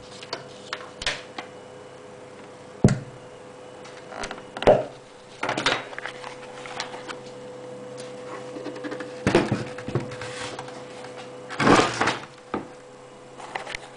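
Handling noise: scattered knocks, clicks and rustles as a hand moves over a subwoofer cabinet, the sharpest knocks about three seconds and nearly five seconds in. A faint steady electrical hum runs underneath.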